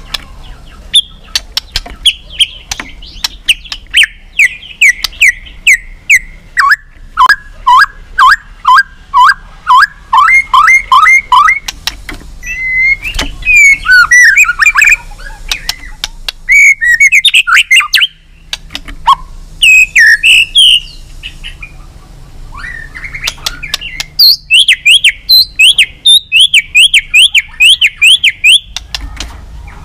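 White-rumped shama singing loudly in its fired-up practice song: phrases of rapid repeated sliding whistled notes, some high and some lower, with sharp clicks among them and a few short pauses between phrases.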